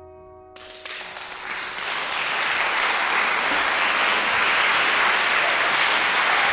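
The trio's last chord on yangqin, cello and piano dies away, then about half a second in an audience breaks into applause that swells over the next second or so and holds steady.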